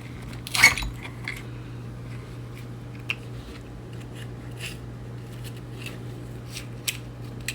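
Small metal clicks and clinks of tools and parts being handled while taking apart an electric skateboard hub motor: one louder clack under a second in, then scattered lighter ticks, over a steady low hum.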